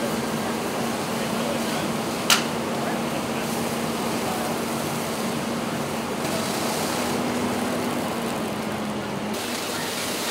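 House and car fire burning, a steady rushing noise with a low steady hum under it that stops near the end, and one sharp crack about two seconds in.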